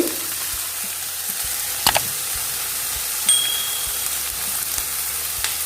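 Sliced onions, ginger, crushed garlic and green chillies sizzling in hot coconut oil in a pan, a steady hiss. A utensil clinks about two seconds in, and a brief thin ringing tone sounds a little after three seconds.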